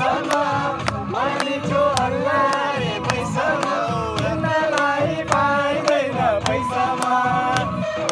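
A song playing: singing over a steady percussive beat.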